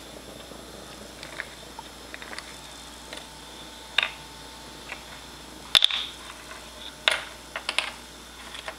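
A bottle cap being tossed and batted back and forth, landing and skittering in scattered light clicks and taps, the sharpest about four, six and seven seconds in, over a steady hiss.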